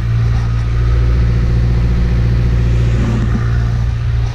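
Sailing yacht's engine running steadily under way, a constant low drone.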